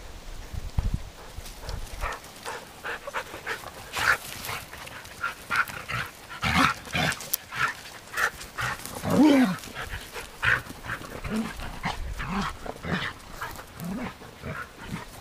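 Samoyed puppies and adult Samoyeds playing, giving many short barks and yips, the loudest about nine seconds in.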